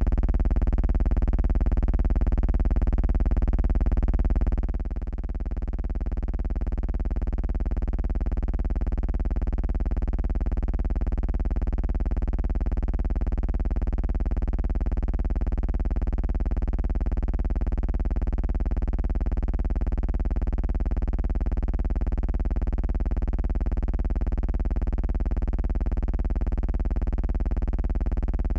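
A steady, low buzzing hum with many evenly spaced overtones that holds one pitch throughout. It dips briefly about four and a half seconds in.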